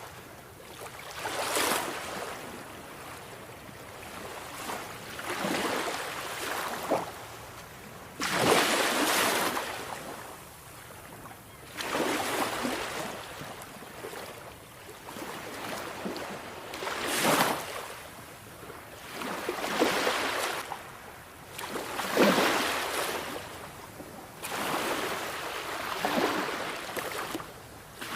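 Sea waves breaking and washing in, the surf swelling and fading again every three to four seconds.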